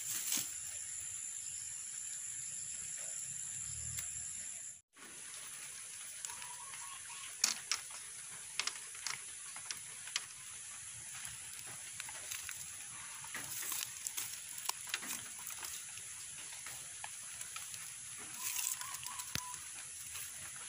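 Intermittent crinkling and rustling of plastic strapping being pulled and knotted around split-bamboo slats by hand, over a steady high-pitched drone of insects. The sound cuts out briefly about five seconds in.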